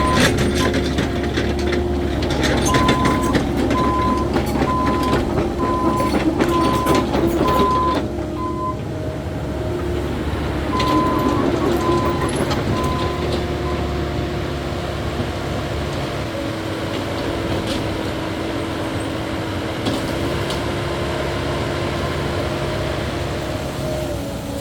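Caterpillar 308E2 mini excavator's diesel engine and hydraulics running under load, with a regular beeping for about the first half. Knocks and clatter of dirt and rock come through the first third, then the machine runs on more steadily, its pitch shifting slightly later on.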